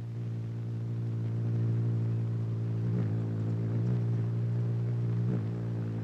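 A steady, low droning tone held on one note, with a rich, buzzy stack of overtones. It wavers slightly about three seconds in and again near the end.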